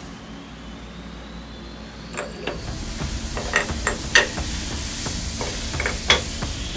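A metal fixture is set by hand onto the pins of a zero-point clamping plate, making a series of sharp metal-on-metal clicks and knocks as it seats. A steady hiss starts about two and a half seconds in, under the clicks.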